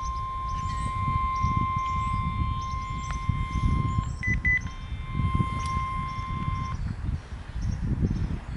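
Radio activation tones for an outdoor warning siren: a long steady tone that breaks off about four seconds in for a few short, higher beeps, comes back, then stops near the end. Wind rumbles on the microphone and birds chirp in the background.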